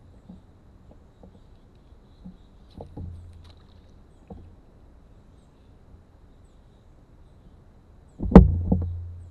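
A few faint knocks on the canoe, then about eight seconds in a sharp, loud knock against the canoe's hull that booms low and dies away over about a second, with a smaller knock just after it.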